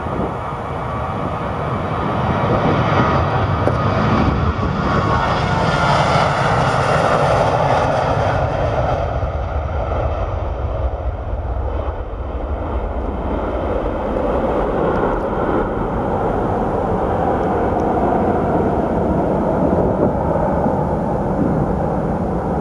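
Ryanair Boeing 737-800's two CFM56 turbofan engines at take-off thrust as the jet rolls down the runway, lifts off and climbs away. The engine noise is loud and steady, swells a few seconds in, and has a whine that falls in pitch around the middle as the jet passes.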